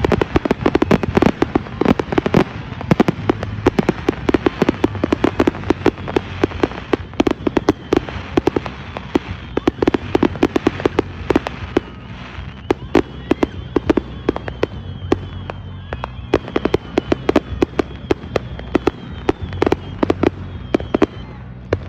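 Fireworks going off in a rapid, continuous barrage of sharp pops and bangs, several a second. From about halfway through, a faint high whistle runs under the pops for several seconds.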